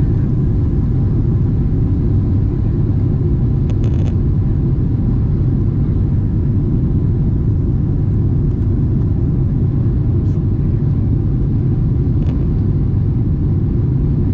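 Boeing 777-200's GE90 engines and airflow heard inside the cabin while climbing after takeoff: a steady, loud, deep rumble. A few faint clicks sound over it around the middle.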